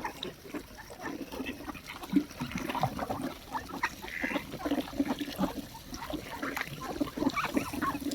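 A flock of waterbirds crowding an ice-free patch of river in winter, calling over one another with many short, irregular calls amid splashing as they feed on scattered grain.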